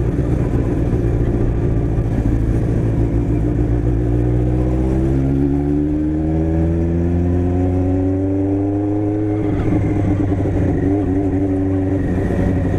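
Motorcycle engine running loud with a steady low drone, then revving up in one rising pull from about five seconds in until the pitch drops suddenly, like a gear change, near the ten-second mark.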